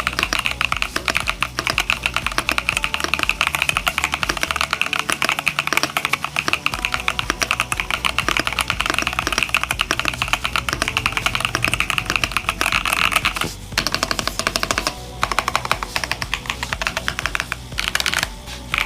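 Continuous fast typing on a Pressplay Essential 75 mechanical keyboard: linear switches under PBT double-shot keycaps on a top-mounted FR4 plate, a dense stream of keystrokes. Short pauses come about 13 and 15 seconds in, and another just before the end.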